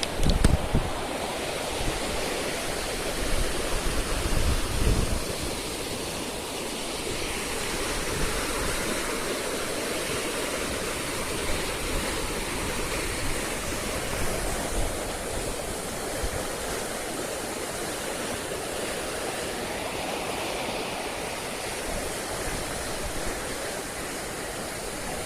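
Rushing water of the typhoon-swollen Maruyama River in flood, a steady roar. Wind gusts buffet the microphone in the first few seconds.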